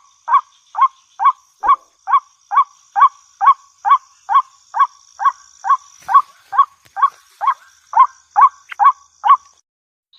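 Waterhen call: one short note repeated steadily about twice a second, stopping shortly before the end.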